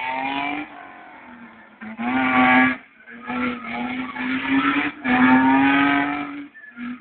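A car drifting on asphalt: the engine is held at high revs while the tyres squeal in four bursts, the longest and loudest near the end.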